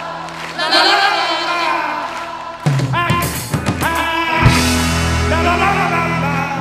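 Live rock song with drums, bass and guitar, and voices singing the melody; the drums and bass come in heavily a little over two and a half seconds in.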